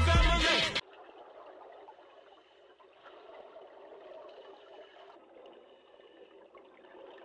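Music with a beat cuts off abruptly under a second in, giving way to faint, steady background hiss at an aquarium viewing window.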